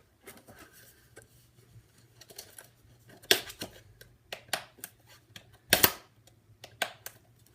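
A series of sharp snaps, irregularly spaced, with the loudest a little before six seconds in.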